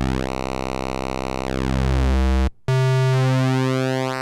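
Roland SH-101 analog synthesizer playing a held pulse-wave note while its pulse width is swept by hand on the fader, so the tone colour shifts back and forth. The note stops about two and a half seconds in, and a note an octave higher is held and swept the same way.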